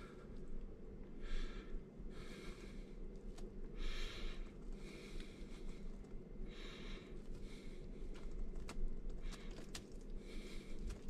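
Wet grated potato pulp rolled back and forth in a metal mesh sieve, a soft swishing scrape about once a second, with a few light clicks near the end.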